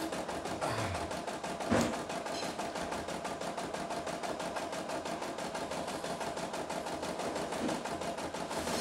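CNY E960 computerized embroidery machine stitching steadily, its needle running at a fast, even rate over a steady hum. One sharp knock a little under two seconds in.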